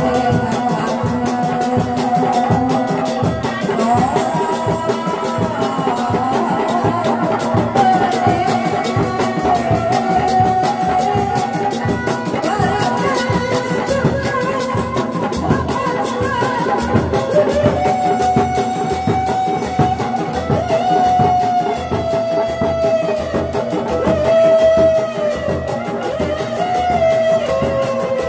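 Sundanese reak ensemble of dogdog frame drums and large barrel drums beaten together in a fast, steady interlocking rhythm. A wavering melody line rides above the drums and is clearest in the second half.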